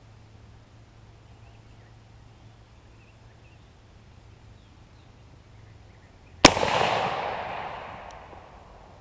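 A single shot from an M1D Garand rifle in .30-06 firing ordinary 150-grain ammunition, about six and a half seconds in, a sharp crack followed by a long echo that fades away over about two seconds.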